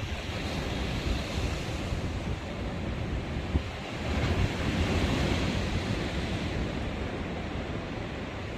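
Ocean surf: waves washing in on the beach, a broad steady rush that swells about four seconds in, with wind buffeting the microphone.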